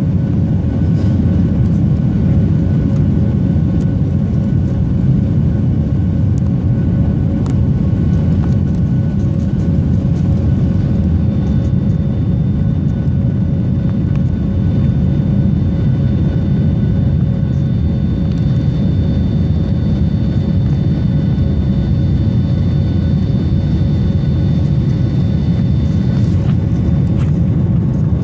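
Steady low rumble and hum of a Boeing jetliner's engines and cabin, heard from a window seat over the wing while the airliner taxis on the ground. A faint high whine joins about a third of the way in and drops away near the end.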